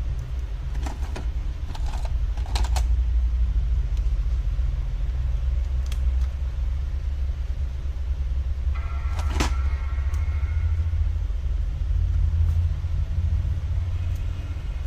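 Steady low rumble with a few light clicks scattered through it, and a brief pitched tone a little past halfway.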